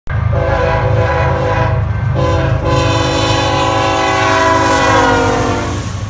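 Locomotive air horn sounding over a low diesel rumble: a long blast, a short one, then a long blast that falls in pitch near the end.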